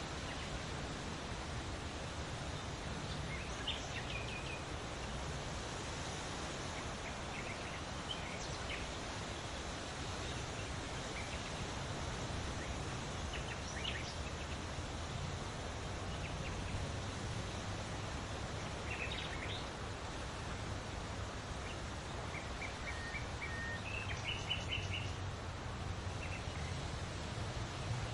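Birds singing over wind rustling through leaves: a steady rustling hiss with scattered short chirps and quick trills throughout.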